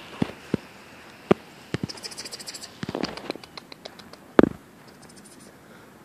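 Scattered knocks and thumps from a handheld camera being carried while walking, the loudest one about four and a half seconds in. Two short runs of rapid high ticking come at about two and five seconds in.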